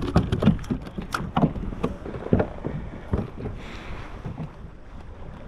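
Irregular knocks and clicks of a just-landed red snapper and fishing tackle being handled on a plastic kayak deck while the hook is worked out, mostly in the first three seconds. Wind on the microphone and water against the hull run underneath.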